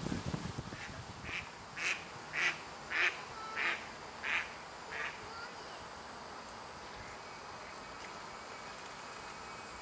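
A duck quacking: a run of about seven harsh quacks, roughly every half-second, that rises to its loudest midway and then trails off about five seconds in.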